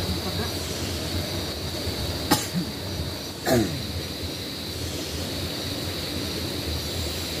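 Streamside rainforest ambience: water running and a steady high drone of forest insects. A single sharp click comes a little over two seconds in, and about a second later a short vocal sound that falls steeply in pitch.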